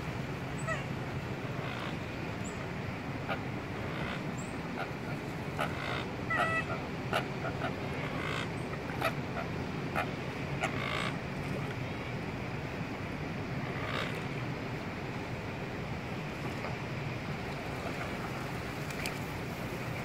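Waterbirds giving short scattered calls, most of them between about six and eleven seconds in, over a steady low background noise.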